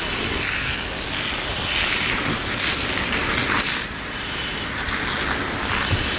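Fire hose nozzle discharging a steady water jet close by, a continuous rushing hiss, with the water striking smouldering roofing.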